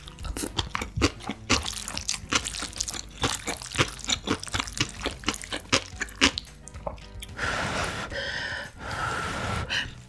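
Close-miked crunching of seasoned pickled radish, crisp clicks several times a second. About seven and a half seconds in it gives way to two long slurps of creamy instant noodles, each about a second and a half.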